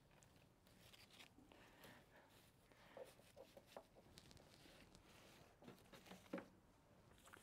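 Near silence with faint rustling and a few soft ticks of cut flower stems and foliage being handled on a worktable, the clearest ticks about three seconds in and again near six seconds.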